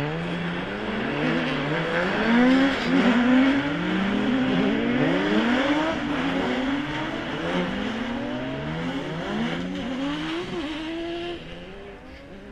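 Several ice-racing cars sliding round a snowy hairpin, their engines revving in overlapping rising glides as each accelerates out of the turn over a hiss of tyres on ice and snow. The sound drops away about a second before the end as the pack leaves.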